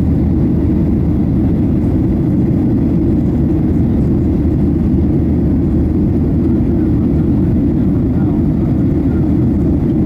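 Cabin noise inside a Boeing 737-800 in flight: the steady deep rumble of its CFM56-7B turbofan engines and the airflow over the fuselage, heard through the window seat.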